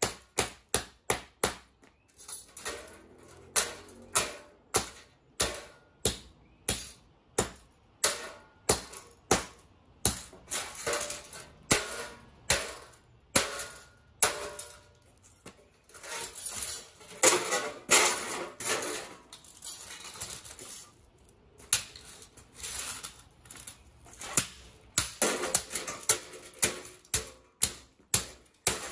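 Repeated hard blows smashing old consumer electronics (a VCR or cable box casing), about one to two strikes a second, with denser crunching and rattling of breaking parts about halfway through and again near the end.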